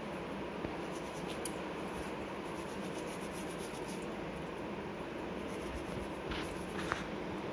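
Toothbrush bristles scrubbing a silver anklet held in a wet palm: a steady, scratchy rubbing, with a couple of faint clicks near the end.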